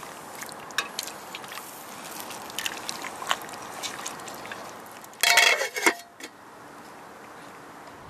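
Metal tongs clicking and scraping against an aluminium stockpot while turning ox-knee soup and kimchi in the broth, over a steady hiss, with a louder metallic clatter about five seconds in.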